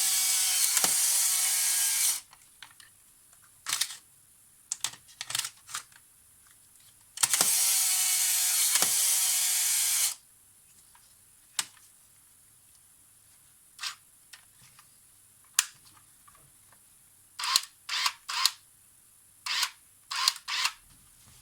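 Polaroid SLR 680 instant camera's gear-train motor whirring in two spells of about two and three seconds, then a scatter of sharp mechanical clicks from the camera, some in quick clusters near the end.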